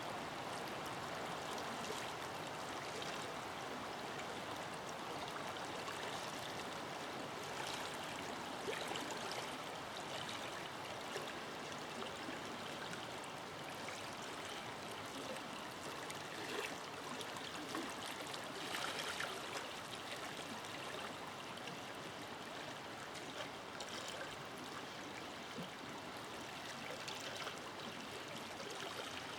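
A forest river flowing steadily: continuous rushing and babbling water with small splashes and gurgles here and there.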